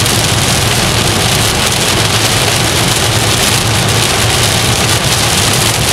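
Heavy rain pelting a car's roof and windshield, heard from inside the moving car, with a steady low hum of the car and its tyres on the wet highway underneath.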